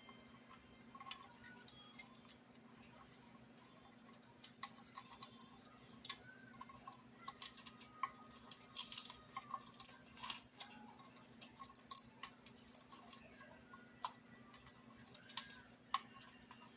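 Moluccan cockatoo working a peanut puzzle box with its beak, making irregular clicks and clacks as it pulls sticks and foraging material out, over a low steady hum.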